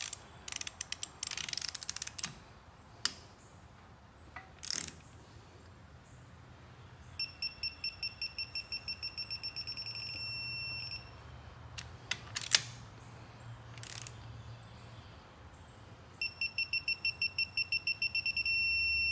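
Digital torque wrench tightening outboard cylinder-head bolts. A few ratchet clicks come first. Then, twice, a run of rapid high beeps, about four a second, turns into a steady tone as each bolt reaches the set torque of 20 foot-pounds.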